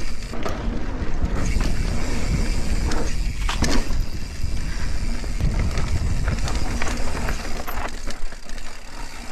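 Mountain bike riding fast down a dry dirt trail: knobbly tyres rolling over loose dirt and the bike rattling over bumps, with steady wind noise on the microphone.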